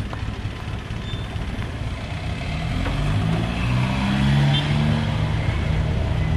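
A motor vehicle's engine running close by over a low rumble, growing louder about three seconds in.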